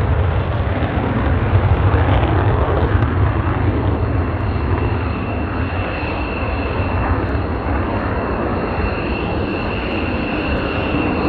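F-16 fighter jet taking off in afterburner: a loud, steady rumbling jet noise, heaviest in the low end, easing slightly as the jet lifts off and climbs away, with a thin high whine coming in about halfway through.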